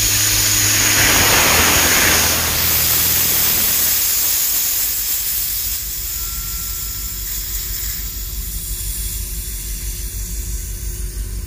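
Compressed air and condensed water blowing out through the opened relief (condensate drain) valves of a switched-off SCBA breathing-air compressor. It is a loud hiss that is strongest for the first two to three seconds, then tapers off as the system pressure is relieved. A steady low hum runs underneath.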